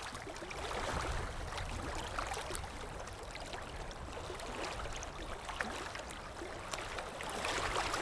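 Steady wash of sea water at the shoreline, with a low rumble underneath and a few faint ticks, swelling slightly near the end.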